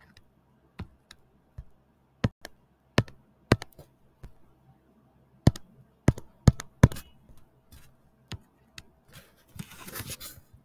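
Irregular sharp clicks and taps from a pen stylus and computer controls, about a dozen, bunched most loudly around the middle, as a stylus that is not responding is tried. A brief rustle near the end.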